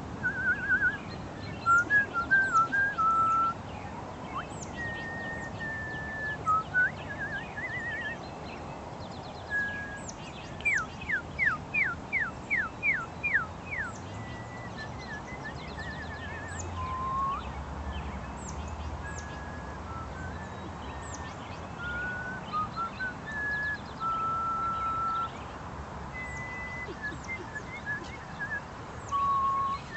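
A woman whistling bird calls to draw in cardinals: a quick trill, several held notes, and a run of about eight quick downward slurs a third of the way in. Faint high chips from small birds sound on and off throughout.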